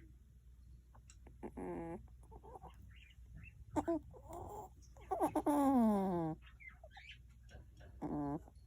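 Cat with cat flu (a feline upper respiratory infection) breathing with great difficulty through its open mouth: congested, wheezing breaths about every two seconds, each with a low rasping tone. About halfway through comes the longest and loudest breath, a wheeze that falls in pitch.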